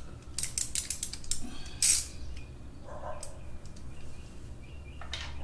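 A ratchet wrench clicking in a quick run of sharp clicks, then a louder click near two seconds in and a few scattered clicks and taps as a motorcycle oil filter is loosened.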